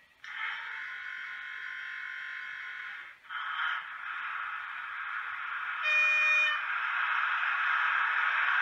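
Sound decoder of an H0 model V100 diesel locomotive: a steady buzzing tone starts suddenly and holds for about three seconds, then gives way to a running noise that grows louder, with a short horn toot about six seconds in.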